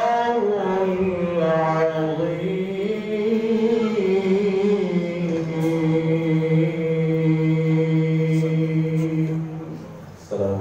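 Male qari chanting a Quran recitation in the melodic tilawah style into a microphone, his voice winding up and down in pitch and then holding one long steady note that fades near the end.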